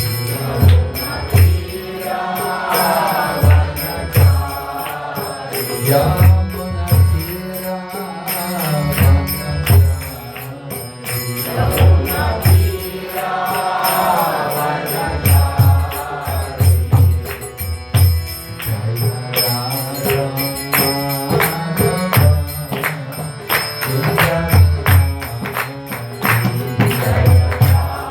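Devotional Hindu chant (kirtan) sung to a steady beat of low drum strokes and bright hand-cymbal clashes.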